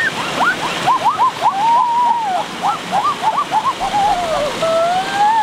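A person giving a quick run of high, rising-and-falling whoops, a few each second, then one long call that rises and falls near the end, over the steady rush of a stream.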